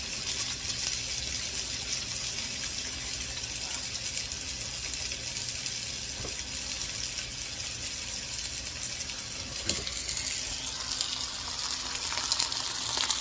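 Chicken tenderloins sizzling in a hot 10-inch cast iron skillet as they brown: a steady hiss with faint crackles, growing louder near the end.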